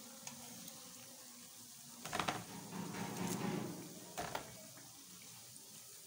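Pakoras shallow-frying in oil on a flat iron tawa, a faint steady sizzle, with a metal spatula scraping and knocking on the tawa about two seconds in and again briefly after four seconds.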